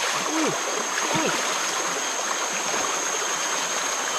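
Swollen, fast-flowing floodwater rushing steadily past the bank, with a couple of short swooping tones about half a second and a second in.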